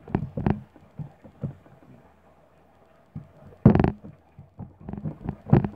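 Hands working clear slime in a plastic bowl: irregular sticky squelches, slaps and taps. The loudest comes about three and a half seconds in, and another just before the end.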